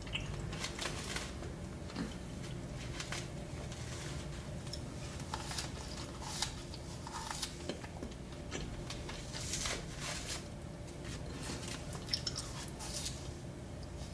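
Close-miked eating sounds: irregular small wet clicks and crunches of someone biting and chewing dessert.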